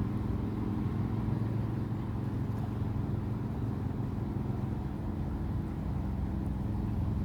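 A steady low rumble with a faint hum in it, like a running engine.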